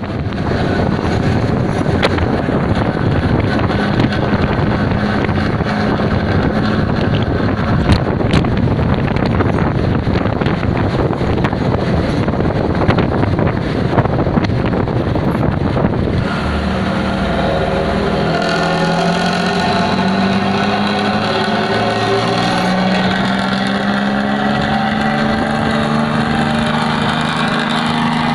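Diesel exhaust roar of a Hino AK bus, heard from close behind it on the move. It is rough and noisy for the first half. About sixteen seconds in it settles into a steady droning engine note that slowly climbs in pitch.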